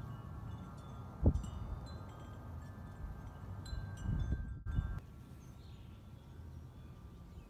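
Wind chimes ringing: several overlapping metal tones hang on, with short higher tinkles scattered over them. A few dull low thumps come in around the middle, and after about five seconds the chimes carry on more faintly.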